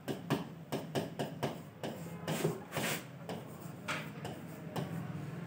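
Pen tapping and scraping on the surface of an interactive touchscreen board during handwriting: an irregular run of quick clicks, with a few longer scratchy strokes about two to three seconds in.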